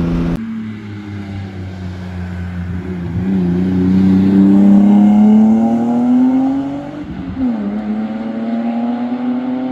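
BMW E36 straight-six breathing through a Flowmaster 40 Series muffler, accelerating past with its exhaust note rising in pitch and loudest about five seconds in. The note drops briefly just after seven seconds as it shifts up, then climbs again as the car pulls away.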